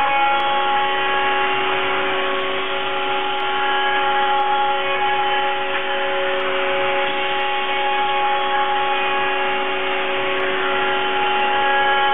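CNC milling machine cutting a plastic plate with a small cutter: a steady whine of several tones over a hiss. A lower tone sets in right at the start and holds steady.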